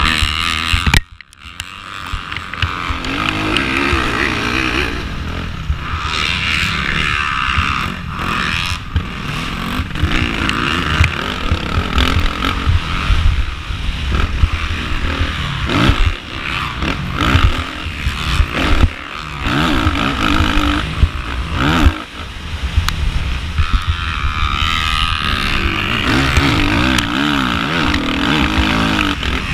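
Onboard sound of a 2013 Suzuki RM-Z450's four-stroke single-cylinder engine ridden hard, revving up and falling back again and again. About a second in the engine note drops away almost completely for a moment before picking up again.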